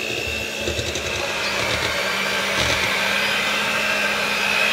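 Blender motor running steadily with a high whine; its pitch sags slightly about halfway through and picks up again.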